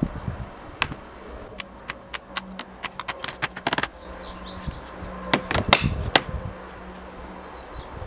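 Small brass weights clicking and knocking as they are pulled out of their wooden box and set down on a plastic tray: a quick run of sharp clicks, then a few louder knocks about five to six seconds in.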